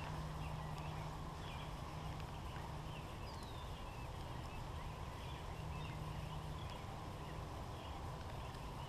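Quiet outdoor ambience: faint, scattered bird chirps over a steady low hum.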